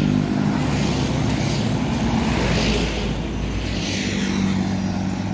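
A bus engine running steadily close by, with road noise. A deeper rumble comes in about half a second in and fades after about four seconds, as a heavy vehicle passes.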